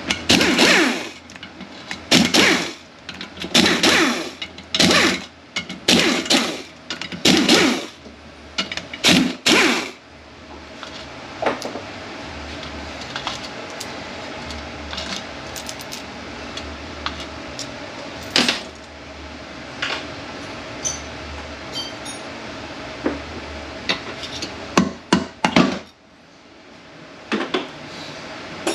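Metal hand-tool work on the bolts of an automatic transmission's oil pump: a run of about eight loud metallic clanks and rattles in the first ten seconds, then scattered light clicks, and a last cluster of sharp clanks near the end.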